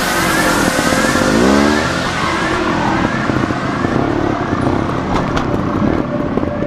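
Trials motorcycle engine revving in short bursts, its pitch rising quickly about a second and a half in as the bike climbs over concrete blocks. A few sharp knocks sound about five seconds in.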